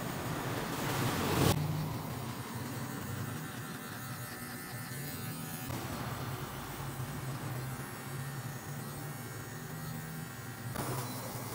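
Electric hair clipper buzzing steadily as it cuts short hair at the side and back of the head. A brief louder rasp comes about a second in.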